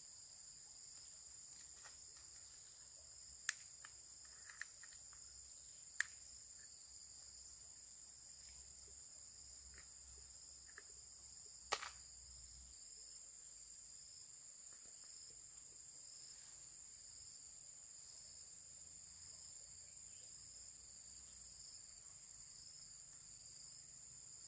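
Faint, steady insect chorus: a continuous high-pitched trill. A few sharp clicks stand out, about 3.5, 6 and 12 seconds in.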